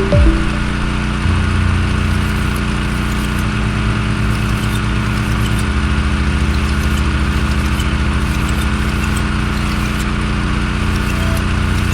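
An engine running steadily, its low hum stepping slightly in pitch about a second in and again about halfway through.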